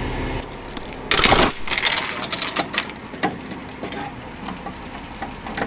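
Steel tie-down chain being handled and dragged on a rollback truck's steel deck: a loud rough rattle about a second in, then a quick run of metal clinks that thins out to occasional ticks.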